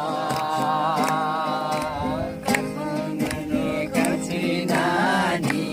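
Live Nepali folk song: a singer holds a long, wavering note for about two seconds, then sings again near the end, over a steady rhythmic accompaniment.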